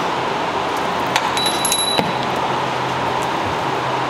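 Small metal engine parts clinking during the teardown of a Ford Coyote V8, with a few sharp clicks about a second in and a short ringing clink just after, over a steady background hum.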